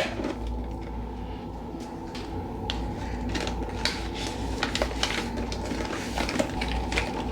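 Light clicks and taps of small household objects being handled, scattered irregularly over a steady low hum.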